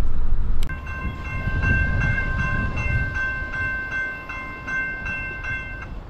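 Railroad grade-crossing warning bell ringing with a bright, high clang, struck about two and a half times a second: the crossing signals are active, warning of an approaching train. Before it, in the first half second, car road noise cuts off suddenly.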